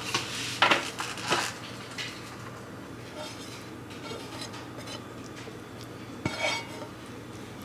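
Dishes and utensils clinking and clattering, three short knocks in the first two seconds and another about six seconds in, over a low steady hum.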